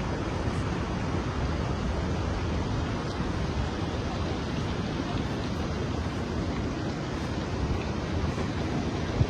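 Steady rushing wind noise on the microphone, even throughout with no distinct knocks or tones.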